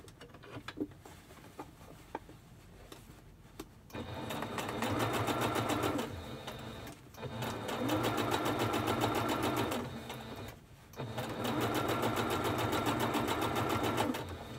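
Electric domestic sewing machine stitching a seam through layered fabric in three runs of a few seconds each, with short pauses between them. The first run starts about four seconds in and the last stops just before the end.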